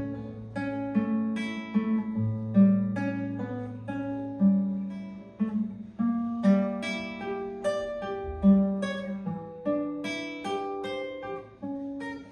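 Solo classical guitar playing plucked melody notes and arpeggios over held bass notes, each note ringing and fading.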